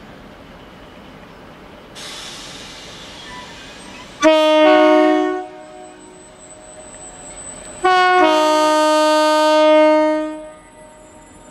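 Horn of a British Rail Class 60 diesel freight locomotive sounding twice: a short blast about four seconds in, then a longer blast of about two and a half seconds, over the steady noise of the train.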